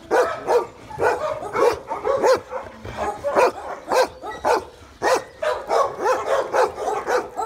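Kennelled dogs barking: a steady run of short barks, about two a second.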